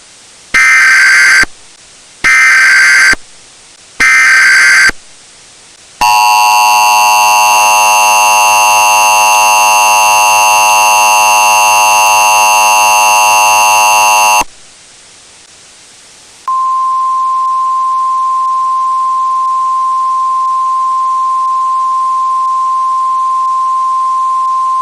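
Emergency Alert System tones. First come three short screeching bursts of SAME header data, then the harsh two-tone EAS attention signal for about eight seconds. After a pause, a steady single-pitch alert tone, the 1050 Hz Weather Radio warning tone, runs for about nine seconds.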